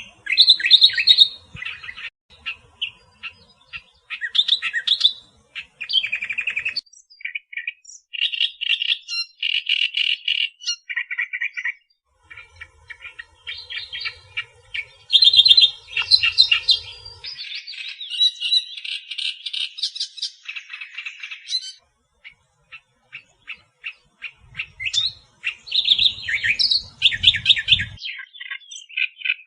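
Reed warbler (kerak basi Australia) singing: long, fast, chattering phrases of short harsh and whistled notes, repeated in quick runs with brief pauses between phrases.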